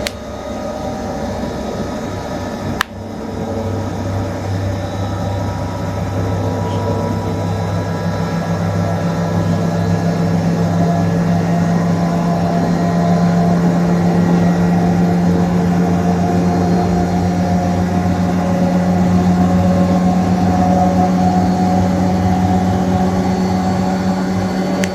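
Hotpoint First Edition WMA 9 washing machine running on its replacement motor, the drum motor's hum climbing slowly in pitch and getting louder as it speeds up. There is a single sharp click about three seconds in.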